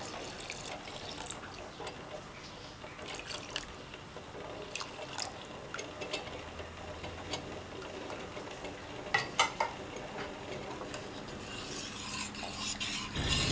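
Thin coconut milk poured from a plastic bowl into a steel pot of cooked chana dal and jaggery, then a steel ladle stirring the thick mix, with a few light knocks of the ladle against the pot's rim, the clearest a pair a little past the middle.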